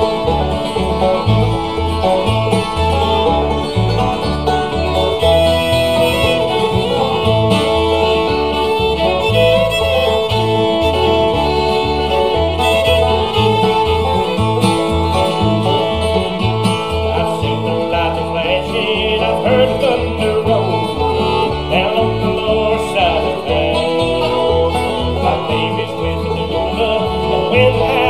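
Bluegrass band playing an instrumental opening: bowed fiddle over banjo, acoustic guitar and a steady bass line.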